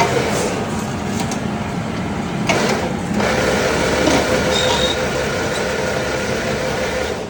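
Workshop machinery running with a steady mechanical noise and a few knocks. A steady hum sets in about three seconds in.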